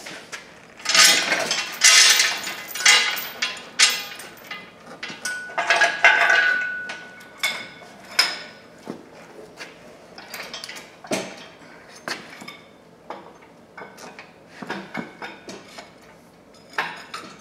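Irregular metal clanks and knocks as the heavy cast-iron front bolster of a Case 830 tractor is shifted on a floor jack and worked into place against the engine block. The clatter is busiest in the first few seconds, with a short squeak about six seconds in.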